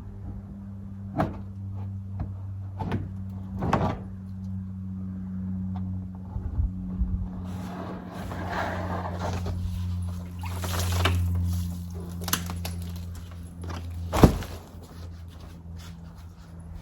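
Steady low hum of a vehicle heard from inside, with scattered knocks and clicks and one loud thunk about fourteen seconds in.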